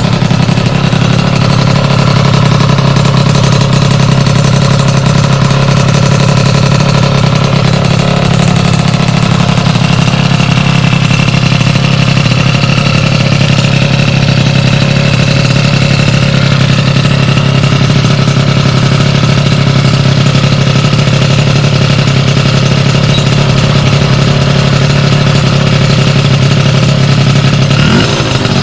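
Sym DD50 scooter's two-stroke 50cc engine with a Polini Corsa Mini build running loudly at a steady, held speed, its pitch barely changing until a slight shift near the end.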